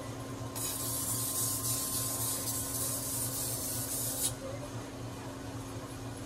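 Steel of a usuba knife's bevel being ground against a flat sharpening stone: a steady high hiss from about half a second in to about four seconds, ending with a short click, over the continuous hum of the sharpening machine.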